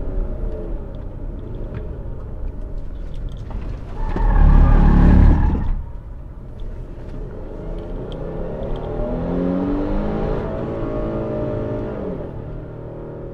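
Jeep Grand Cherokee SUV engine driving, with a loud surge about four seconds in that lasts under two seconds. Later the engine pitch rises as it accelerates, then drops and fades near the end.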